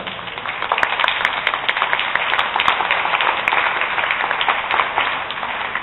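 Audience applauding: many hands clapping, building up about half a second in and easing off slightly near the end.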